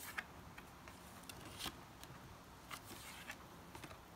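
Paper cardstock cards being handled and slid against one another, with a few short, soft scratchy rustles.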